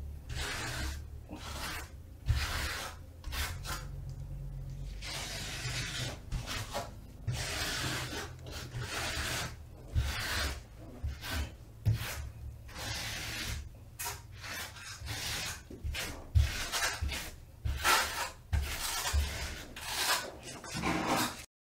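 Rubber grout float scraping back and forth across ceramic wall tile, working grout into the joints in irregular strokes, with a few sharp knocks of the float against the wall.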